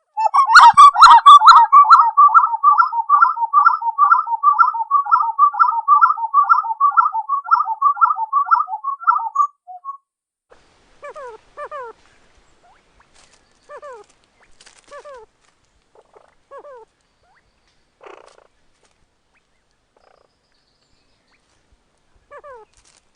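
Spot-winged wood-quail (uru) singing: a loud, fast rolling series of repeated paired whistled notes, about two to three phrases a second, lasting roughly nine seconds. After that come fainter, spaced pairs of down-slurred notes every second or two.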